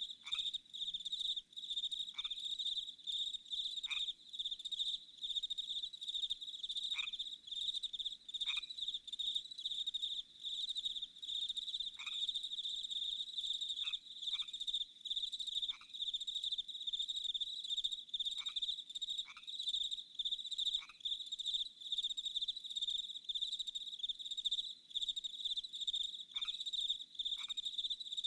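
Short falling whistle-like frog calls that repeat every one to two seconds, over a steady, high, pulsing chorus.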